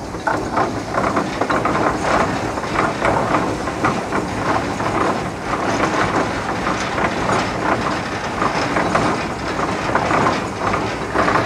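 Steam traction engine running, with a quick rhythmic chuffing and mechanical clatter from its engine and gearing, and some steam hiss.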